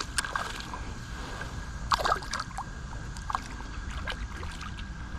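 Light knocks and clicks of gear being handled in a kayak, over a steady low rumble of wind and water; the loudest knock comes about two seconds in.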